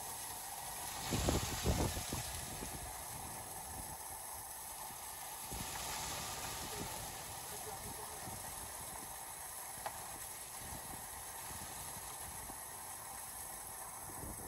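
Steady rushing water from a small waterfall coming down hard, with a few dull low thumps about a second in.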